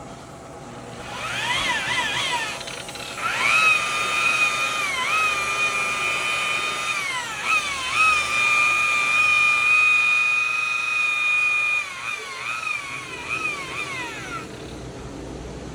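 Electric buffer with a wool pad, polishing car paint with cutting cream: a motor whine that starts in a few short bursts, then runs steadily with several brief drops and recoveries in speed, and stops near the end.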